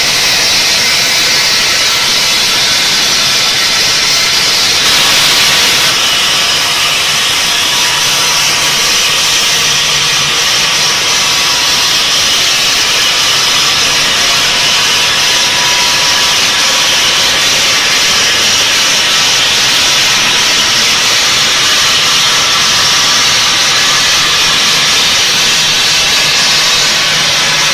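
Multi-blade Mushtaba bridge saw cutting eight granite blocks at once: a loud, steady hissing grind of the blades in stone over the hum of the machine, a little brighter about five seconds in.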